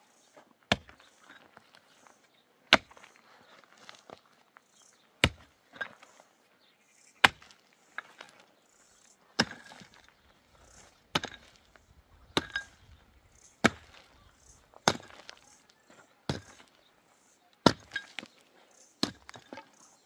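Repeated sharp chopping blows, over a dozen, landing about one every one to two seconds, with faint rustling between strikes.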